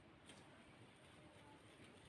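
Near silence: faint room tone, with one faint tick about a quarter second in.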